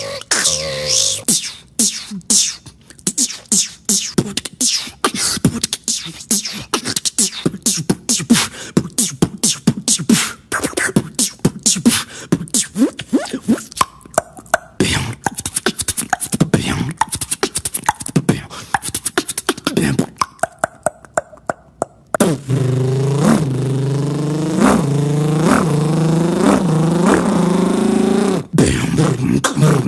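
Beatboxer's vocal percussion: a long run of quick mouth clicks and clipped percussive sounds. About two-thirds of the way through it switches to a steady buzzing hum that swells in a repeating pulse.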